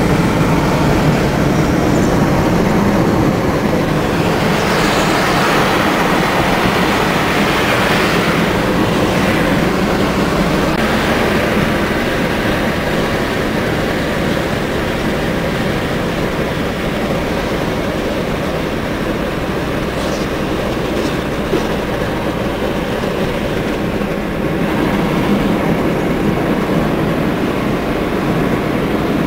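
Steady rumble of engine, tyres and wind heard from inside a moving car.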